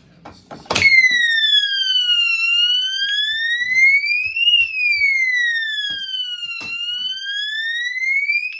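Pulled fire alarm going off: a few clicks, then a loud electronic siren that wails slowly up and down, each rise or fall lasting about two seconds.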